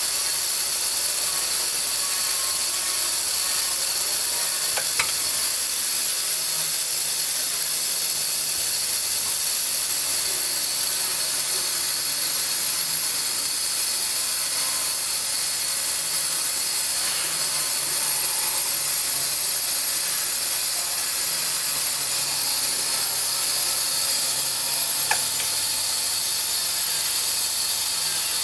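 Prefilled syringe filling machine running, a steady high hiss over the noise of its mechanism, with a sharp click about five seconds in and another near the end.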